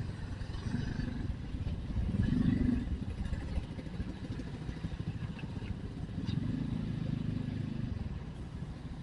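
Motorcycle engine running while riding along a street, with the engine note swelling about two seconds in and again around six seconds in.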